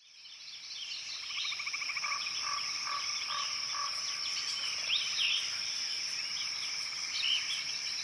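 Wildlife chorus in leafy woods: a steady high insect drone with rhythmic trilling calls underneath, and a few short, quick bird chirps about five and seven seconds in. It fades up from silence over the first second or two.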